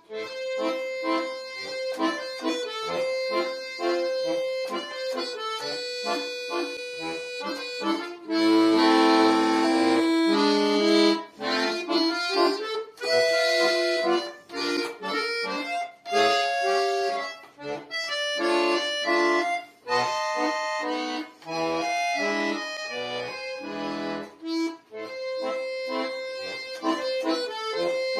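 A bayan (Russian button accordion) played solo: a melody over held chords, with a louder, fuller passage about a third of the way in.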